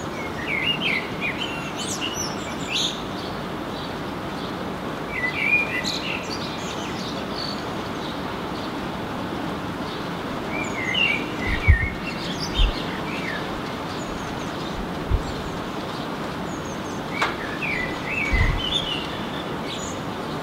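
Male common blackbird singing: four fluting phrases, each running into a high twitter, a few seconds apart, over the steady hiss of rain. A few short low thumps come in the second half.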